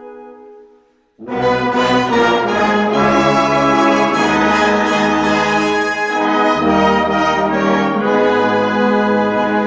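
A soft held woodwind note fades out. About a second in, a brass band comes in loudly and plays sustained full chords.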